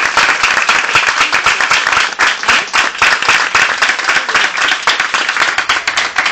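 Small audience applauding, loud, dense hand-clapping right at the microphone.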